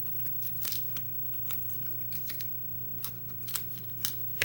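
Light, scattered clicks and small scrapes of a padlock key and small lock parts being handled, over a steady low hum.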